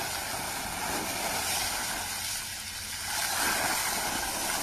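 Water jetting from a broken pipe and spraying down onto wet ground: a steady hiss that grows a little louder about three seconds in.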